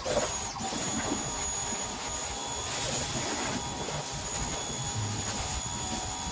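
Pressure washer spraying water onto a car's body: a steady hiss with a thin high whine that starts abruptly as the trigger is squeezed.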